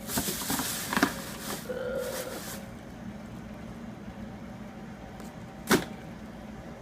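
Rustling and clattering of food containers and packaging being handled for about two and a half seconds, then a single sharp knock near the end, over a steady low hum.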